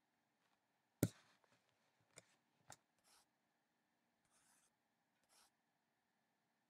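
Near silence with a faint steady hum, broken by a sharp knock about a second in, then two small clicks and a few brief soft rustles.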